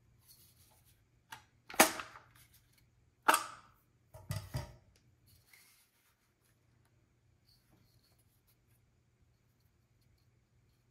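Charles Daly Honcho 12-gauge pump shotgun being handled: two sharp clacks about a second and a half apart, then a pair of duller knocks, then only faint handling ticks.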